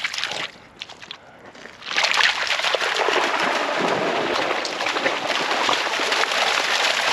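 Two springer spaniels splashing and running through shallow lake water. A quieter moment gives way about two seconds in to loud, steady splashing that goes on to the end.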